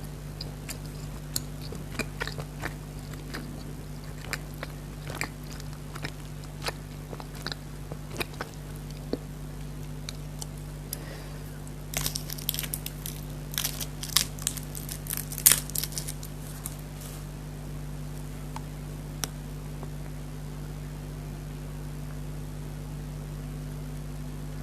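Close-miked eating of chatkhari jelly candy: scattered wet mouth clicks and bites, with a denser run of crackly crunching sounds around the middle.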